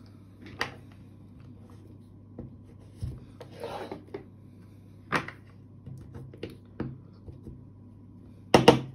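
Scattered light clicks and knocks of shotgun shell parts being handled on a desk, with a brief rubbing noise. Near the end comes a sharp double knock as a slug is pressed down into a shell with a wooden-handled rammer.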